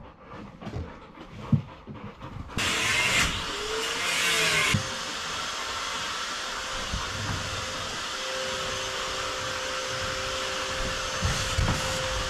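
A motor-driven machine running with a steady whirring hiss. It starts suddenly about two and a half seconds in, is loudest for the first two seconds, then holds steady.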